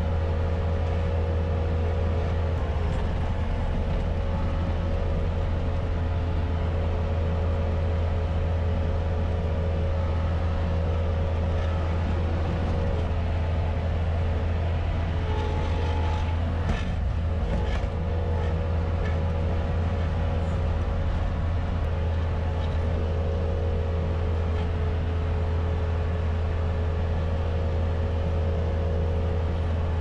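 Bobcat S250 skid-steer loader's diesel engine running steadily while the machine pushes snow, heard from inside the cab, with a brief rattle near the middle.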